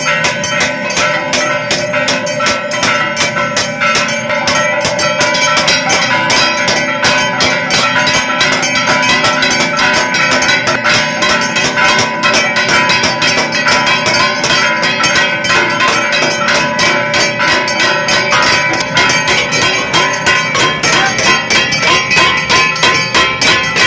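Brass temple bells rung rapidly and without pause, a dense clanging of quick strokes over a lingering metallic ring.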